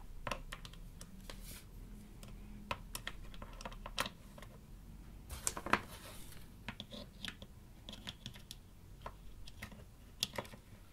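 Scattered light clicks and taps at irregular moments as multimeter test probes and leads are handled, with a few sharper knocks, the loudest about four seconds in, near six seconds and near the end.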